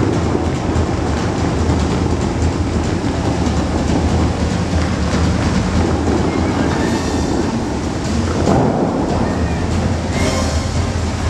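The Dubai Fountain's water jets shooting and spraying high over the lake: a loud, steady rushing rumble, with the show's music over loudspeakers blended in.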